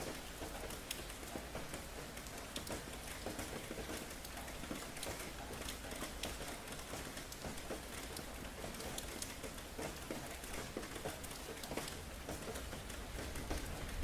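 Steady rain falling and pattering on hard surfaces, with many small drop ticks.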